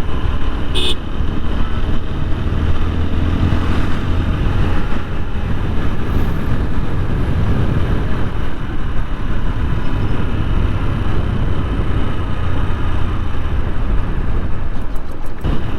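TVS Apache 160 4V single-cylinder motorcycle engine running steadily while riding, with wind rushing over the helmet-mounted camera's microphone.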